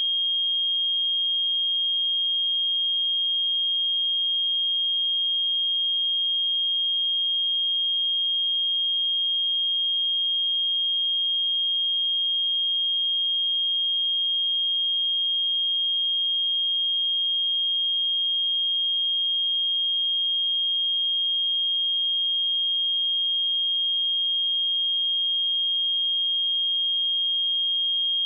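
A pure sine-wave test tone at 3238 Hz, one steady high-pitched note held at an even level without change.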